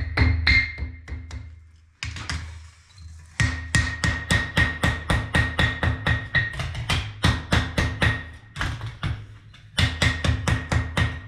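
Hand hammer striking hot iron on an anvil in a fast run of blows, about four a second, with the anvil ringing at each blow and a short break about two seconds in.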